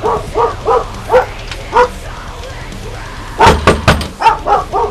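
A dog barking in short, repeated barks, with a louder flurry of barks about three and a half seconds in.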